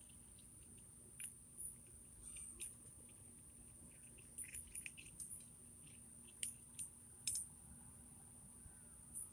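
Cats eating dry kibble from a plastic tray: faint, scattered crunches and clicks, with a few sharper ones near the end.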